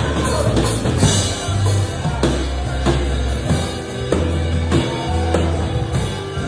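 Worship-song band music in an instrumental passage: a drum kit playing a steady beat over sustained bass notes.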